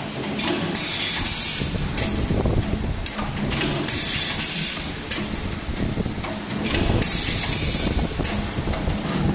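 3D CNC wire bending machine running, its motors giving a high whine that swoops in pitch and repeats about every three seconds, over continuous mechanical clatter as it feeds and bends steel wire.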